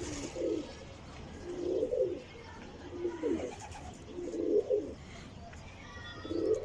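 Domestic pigeons cooing, about five low coos spaced a second or so apart.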